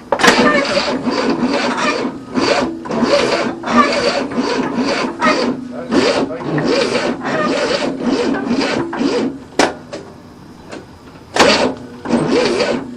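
Starter cranking the 1967 Cadillac's V8 in several bursts for nearly ten seconds, with a rasping, uneven churn, then stopping; the engine does not catch and run, as it is flooded with the choke held open.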